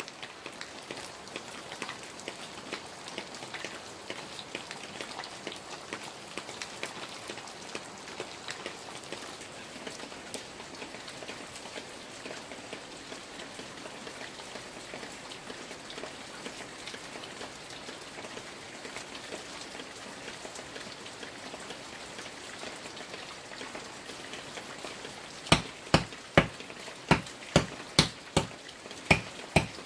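Steady hiss of rain pattering on leaves and ground, with faint scattered taps. Near the end comes a run of about ten sharp knocks, two or three a second, much louder than the rain.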